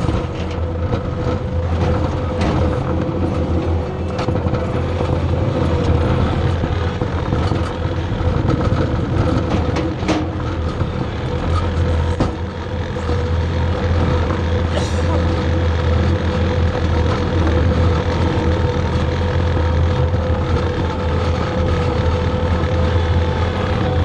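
Skid steer's diesel engine running steadily at working revs with a constant whine over its low drone as it pulls a scraper pan through dirt, with scattered light clicks and rattles.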